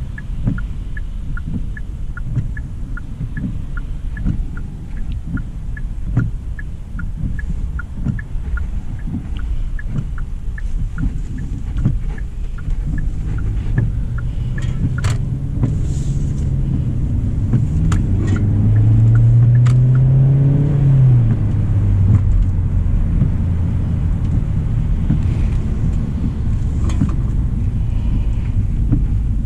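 Road and engine rumble inside a 2025 Hyundai Elantra SEL. A turn-signal indicator clicks steadily for about the first ten seconds. Past the middle, a few sharp knocks sound, then the engine's low note rises and falls over a few seconds as the car pulls away.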